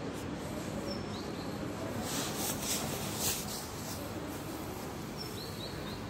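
A few short, high bird chirps, about a second in and again near the end, over a steady background hum, with a brief hiss about two seconds in.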